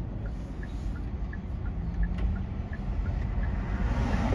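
Car engine running with low rumble heard inside the cabin, with a faint quick ticking of about three ticks a second. The noise swells near the end as the car pulls away.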